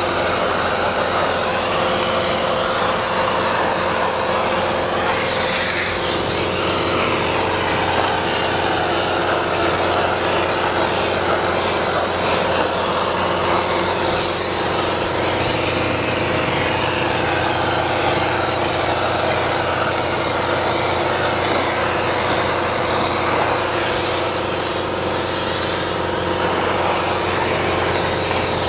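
Spray foam gun spraying open-cell foam with a steady hiss that swells now and then, over the constant drone of machinery running.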